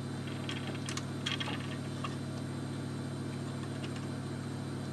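A few faint clicks and rustles of plastic parts being handled, mostly in the first second and a half, as a wiring connector inside a Mercedes-Benz headlight housing is worked loose. A steady low hum runs under them.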